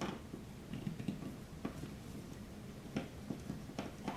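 A screwdriver driving the screws of a dimmer switch's cover-plate back plate into the wall box. It gives a few faint, irregular clicks and ticks.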